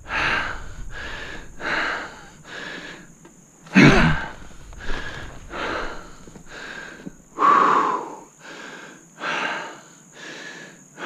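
A man panting hard, about two breaths a second: he is out of breath from dragging a heavy log by hand. One heavier breath comes about four seconds in.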